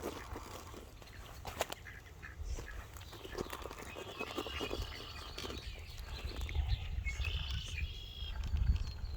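Birds chirping, with a few short high calls near the end, over a steady low rumble and scattered light clicks.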